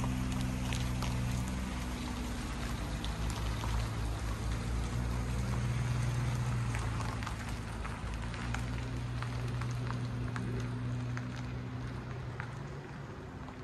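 Engines of a camper van and a minivan driving slowly away on a gravel road: a low engine hum with tyres crackling over the gravel, fading near the end.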